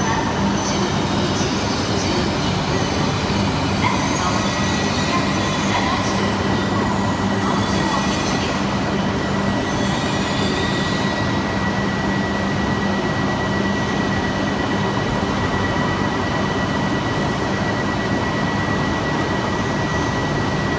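Shinkansen train, an E5 and E3 coupled pair, drawing to a stop and standing at the platform with its equipment running: a steady even noise, with a constant high whine that sets in about four seconds in and holds.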